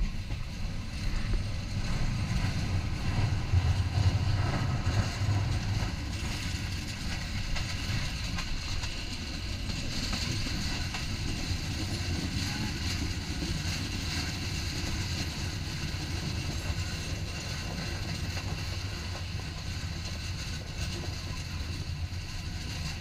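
Passenger train running along the track: a steady rumble and rattle of wheels on rails, a little louder a few seconds in.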